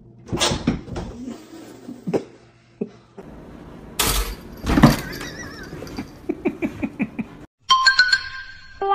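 Knocks and clatter as cats jump about kitchen cabinets and a counter, with a louder crash just after four seconds in. A short burst of music near the end.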